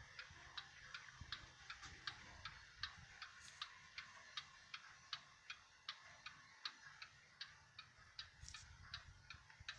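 Faint, quick, even ticking of an 1881 Ansonia cast iron mantel clock's open escapement, the clock running steadily.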